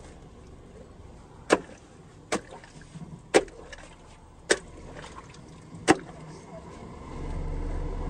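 Hatchet chopping at roots and packed earth: five sharp separate strikes spread over about four and a half seconds, a second or so apart. A low steady rumble comes in near the end.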